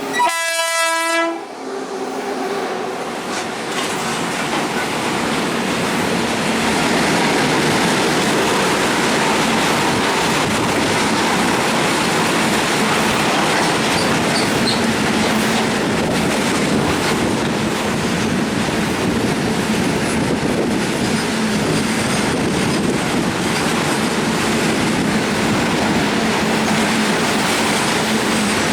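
A WAG9 electric freight locomotive's horn sounds once, a short blast of about a second and a half at the start, as a warning to clear the track. Then a long freight train runs past with a steady loud rush of wheel and rail noise.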